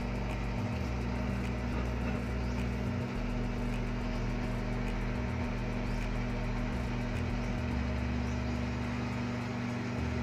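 Steady low hum of a mains-powered appliance running, drawing about six and a half amps.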